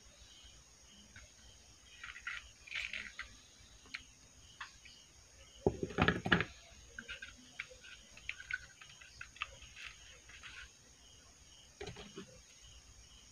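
Faint handling noise of a wooden-framed homemade transformer being turned over in the hand: scattered light clicks and rustles, with a louder knocking clatter about six seconds in and a shorter one near the end. A faint steady high-pitched tone sits behind it.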